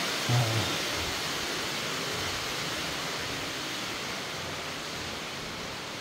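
Underground cave stream running steadily, a broad hiss of rushing water that grows slowly fainter. A brief low thump about half a second in.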